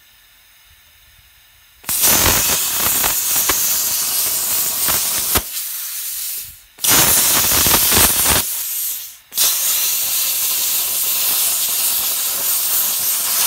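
Plasma cutter cutting through steel plate: a loud, crackling hiss that starts about two seconds in, stops briefly twice and starts again.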